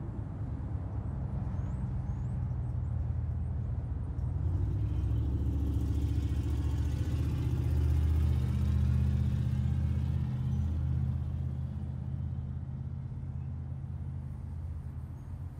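Road traffic: a car passes, its tyre and engine noise swelling over a few seconds and then fading, over a steady low rumble.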